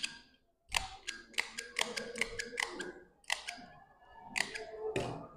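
Cotton cloth being handled on a wooden table: a quick run of short crisp rustles and taps as the fabric is gathered into pleats.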